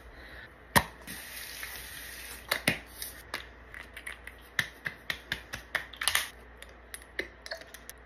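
Small plastic clicks and taps of skincare bottles being handled and a pump dispenser being pressed, with one sharper click a little under a second in.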